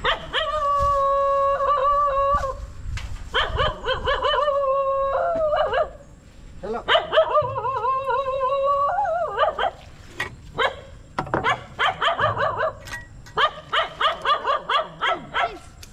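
A dog whining in three long, wavering howls, then yelping in a quick run of short cries, about three or four a second, through the second half.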